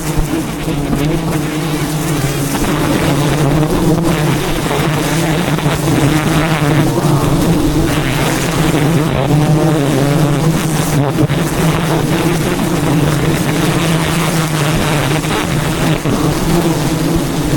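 A large swarm of wild honeybees buzzing around the hive: a steady, loud, droning hum.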